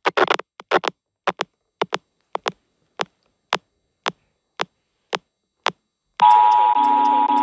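Logo sound run through split pitch-shifting effects: short clipped blips about twice a second, then from about six seconds in a loud, steady buzzing noise with two held tones that pulse regularly.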